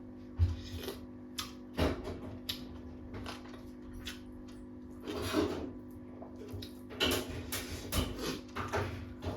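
Mukbang eating sounds: chewing and mouth noises with scattered short clicks and clinks of a plate, over a steady low hum.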